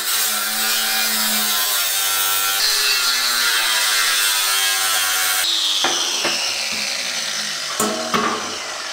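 Angle grinder with a cut-off disc cutting through perforated steel sheet, a loud steady whine. About five and a half seconds in, the cut ends and the sound changes and slowly fades, with a few sharp knocks of the metal sheet near the end.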